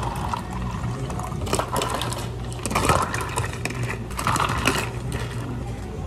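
Water and coffee poured over ice in plastic cups, with ice clinking and crackling in three short bursts over a steady low hum.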